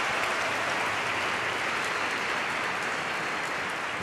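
A crowd applauding: steady clapping from many hands.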